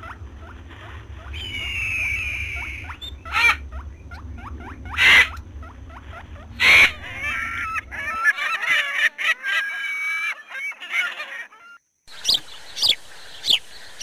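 Birds calling: a few loud single calls a second or more apart over a low steady rumble that cuts off about eight seconds in, then a stretch of chattering calls, and a quick run of short calls near the end.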